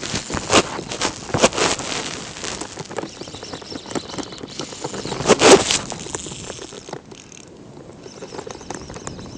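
Irregular knocks and rustling on a chest-mounted camera, from handling and movement. The loudest knocks come about half a second, a second and a half and five and a half seconds in, and it goes fainter after about seven seconds.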